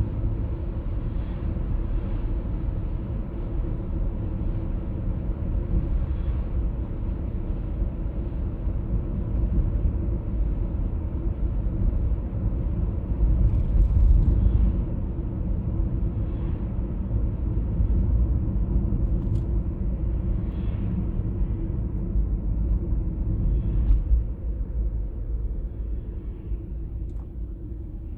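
BMW E39 523i automatic driving, with a steady low hum over the running noise. The hum is a fault of unknown cause that appears at around 50–60 and 70–80 km/h. Its loudness eases slightly near the end.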